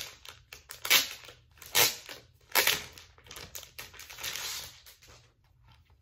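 Handling noise from a camera being adjusted close to its microphone: four loud knocks and rubs about a second apart, then a longer rustling scrape that dies away near the end.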